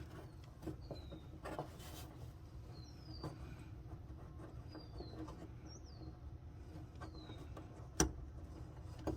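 Faint short bird chirps, each falling in pitch, every second or so, over a few small clicks and one sharper click near the end.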